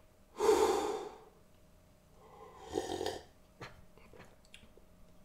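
A man's noisy breaths close to the microphone: a short loud one, then a longer one about two seconds later, followed by a few faint clicks.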